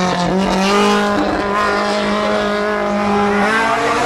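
Race car engine at high revs, a steady note that steps up in pitch about three and a half seconds in.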